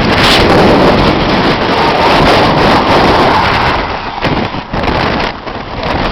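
Strong gusty wind buffeting the microphone as a tornadic storm approaches, a loud rushing rumble that eases and surges past the middle.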